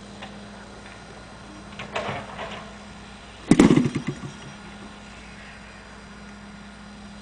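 Model aircraft engine on a large RC aerobatic biplane being hand-flipped to start. About 3.5 s in it fires in a short, loud burst of rapid pops and dies again within about a second, failing to keep running.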